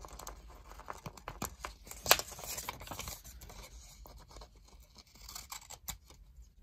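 Scissors snipping off excess clear adhesive tape along the edge of a sheet of paper: a run of small, sharp cuts, the sharpest about two seconds in.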